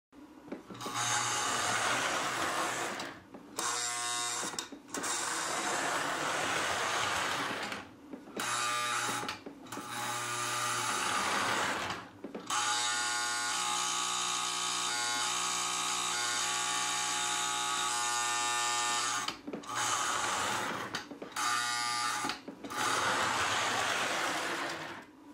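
Lionel 2348 postwar GP-9 toy diesel locomotive running on three-rail track: a steady electric-motor buzz and gear whine with a low hum underneath. It cuts out briefly several times, most often near the start and again near the end.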